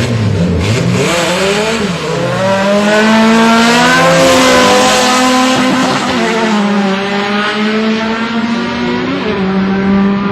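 Drag-racing car engine at full throttle, its pitch climbing, dropping back and climbing again through several gear changes, loudest about four to five seconds in.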